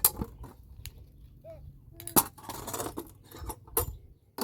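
Sharp clinks and knocks of cookware and utensils being handled: several separate strikes, with a scraping rustle for about a second in the middle.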